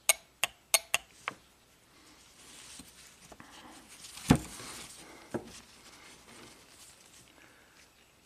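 VVT oil control solenoid clicking on the bench as 12-volt power is put to it and taken off: five sharp clicks in about the first second and a half. Then a soft rustle as the solenoids are handled on a paper towel, with one loud knock about four seconds in and a single click a second later.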